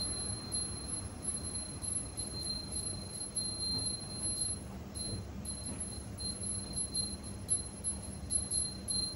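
Railway station ambience: a low rumble with a thin, high-pitched tone that flickers on and off.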